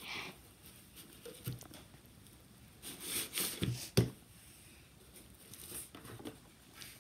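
Quiet handling noises: soft rustles and scuffs, with a sharp knock about four seconds in.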